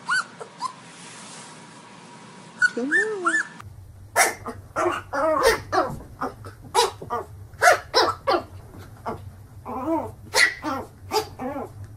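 A black puppy gives a few short, high, gliding whines. After a cut about four seconds in, a small fluffy puppy barks over and over in rapid, high-pitched yaps at its own reflection in a mirror.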